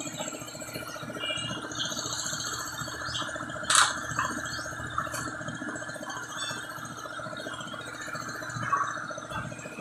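Rubber and metal parts of a truck tyre being handled and fitted by hand, with one sharp knock about four seconds in and a few lighter knocks after it, over a steady background hum.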